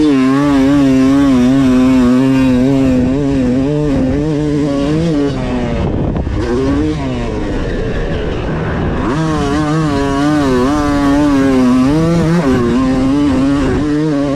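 Yamaha YZ250's single-cylinder two-stroke engine under riding load at high revs, held fairly steady with small wobbles. About five to six seconds in it comes off the throttle with a falling pitch and gives a short blip. Around nine seconds in it revs back up and holds, dipping briefly near twelve seconds.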